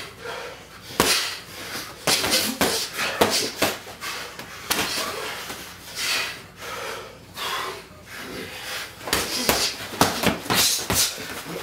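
Heavyweight boxers sparring: padded gloves smacking on gloves and headgear at irregular moments, mixed with short, sharp breaths hissed out with the punches.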